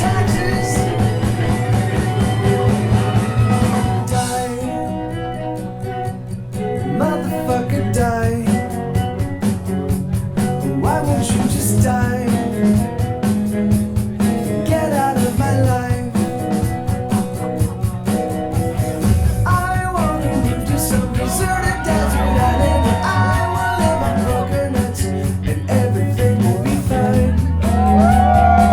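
Loud rock and roll song with singing over a steady bass line and drum beat.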